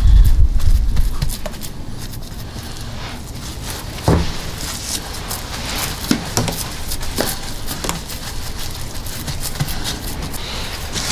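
Wind buffeting the microphone with a heavy low rumble for about the first second, then scattered clicks and knocks over a steady background hiss, the clearest knock about four seconds in.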